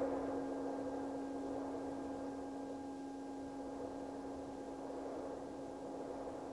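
Singing bowl ringing on one steady low tone with fainter higher overtones. It swells slightly at the start and then fades slowly over a steady rushing wind sound.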